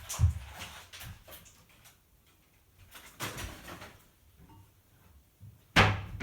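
Rustling and clicking of a plastic toy and its packaging being handled, in short scattered bursts with quiet gaps, and a louder rustle or knock near the end.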